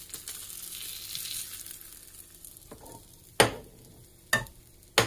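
Butter and cheese sizzling in a frying pan as a grilled-cheese flatbread is flipped with a spatula, the hiss strongest in the first second or so and then fading. Three sharp knocks come in the second half, the last near the end.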